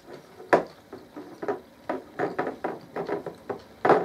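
Eating sounds: forks knocking and scraping on a glass serving dish and plates, with chewing in between. The sharpest knocks come about half a second in and near the end.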